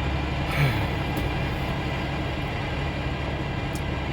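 Semi truck's diesel engine idling steadily, a low constant hum heard from inside the cab, with a brief blip about half a second in.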